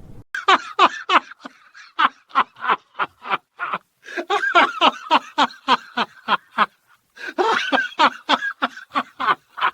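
A person laughing heartily in four long bouts of quick, pitched 'ha' pulses, with short breaks between them.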